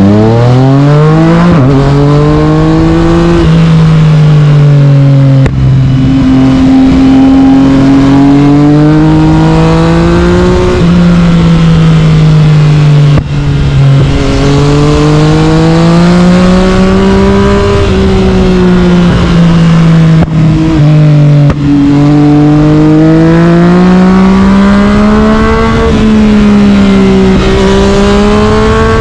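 Yamaha MT-09 inline three-cylinder engine breathing through an Akrapovic carbon exhaust, pulling hard from the start and then swinging up and down in revs while riding. The engine note climbs, drops back and climbs again, with a few brief cuts in the sound where the pitch falls at gear changes or throttle closings.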